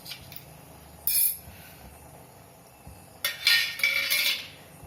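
A metal spoon clinks and rattles against a steel vessel as a spoonful of black peppercorns is added. There is a short burst about a second in and a longer, louder one starting about three seconds in.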